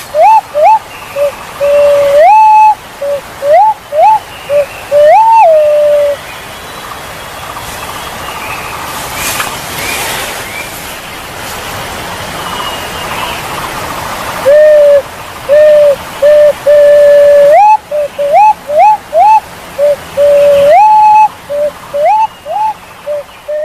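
Punai walik jawa pigeon whistling a series of calls: short rising whistles mixed with longer held ones, in two bouts with a gap of about eight seconds between them, over a steady hiss.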